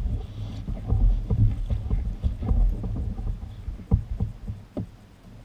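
Irregular low thumps and knocks of gear being handled on a plastic sit-on-top kayak, over a low rumble, as the fishing rod is set into its holder. The sharpest single knocks come about four seconds in and again just before five seconds.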